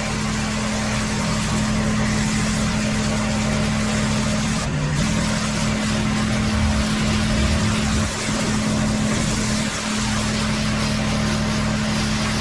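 Pressure washer running: a steady engine-and-pump hum under the hiss of the water jet blasting concrete, briefly dipping twice near the end.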